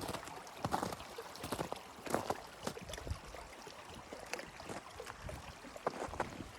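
Irregular crunching in snow, about one or two short strokes a second, over a faint steady hiss.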